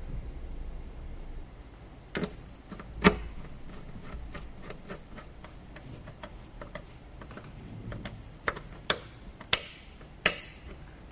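Computer parts being handled during a PC assembly: a series of small ticks and several sharp, louder clicks of plastic and metal components, the loudest coming in a cluster near the end.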